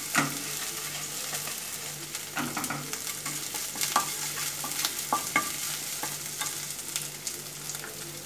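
Chopped garlic, ginger and green chilli sizzling in a little oil in a nonstick frying pan, with a wooden spatula scraping and knocking against the pan at irregular intervals as they are stirred.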